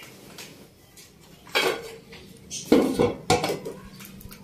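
Aluminium pot lid clanking three times as it is set and settled on a large cloth-wrapped cooking pot of rice, sealing it for dum steaming.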